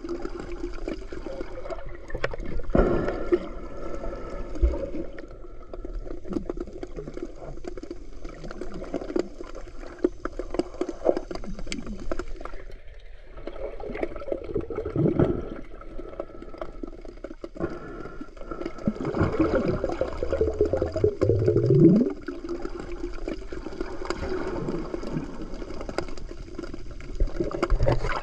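Muffled underwater sound picked up by a submerged camera: water sloshing and gurgling against it, with scattered knocks and two rising swooshes, one about halfway through and one about three quarters through.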